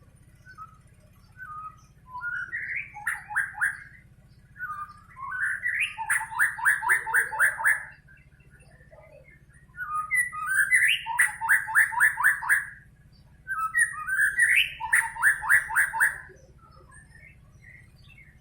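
White-rumped shama (murai batu) singing in four loud phrases. Each opens with a few rising whistled notes and breaks into a quick run of repeated notes, about five a second.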